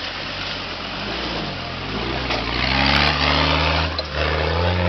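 Off-road 4x4's engine running and revving, its pitch climbing about two seconds in and again near the end, with a rush of noise at the loudest point about three seconds in.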